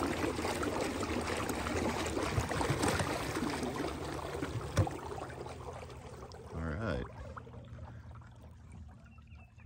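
Water rushing and trickling along a kayak's hull, fading away as the kayak slows to a glide. A single sharp knock comes about five seconds in.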